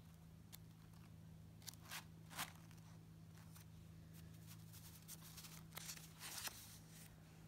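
Paper planner pages being flipped and handled, with short crisp rustles about two seconds in and a longer cluster around six seconds, over a steady low hum.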